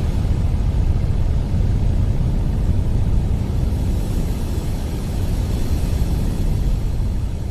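Ocean surf and wind heard as a steady, loud rumbling roar, heaviest in the low end.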